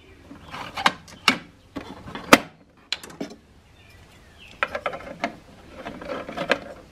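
Hard plastic parts of a Keurig coffee maker's casing and handle being fitted together by hand: irregular sharp clicks and knocks with rubbing in between, the loudest click about two seconds in and a cluster of clicks near the end.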